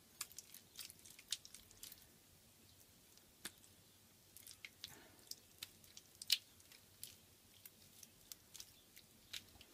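Wet, softened clay squelching faintly in the hands as it is squeezed out and folded back on itself, heard as quick irregular wet clicks and smacks. This is dried-out clay being wetted and hand-worked back to a workable state, folded so no air is trapped.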